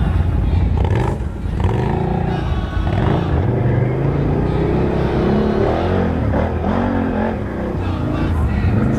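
ATV engines running and revving, their pitch rising and falling repeatedly.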